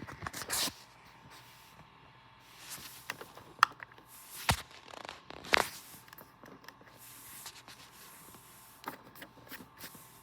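Handling noise: scattered clicks, knocks and short scrapes, with a faint steady tone underneath. No alarm is sounding.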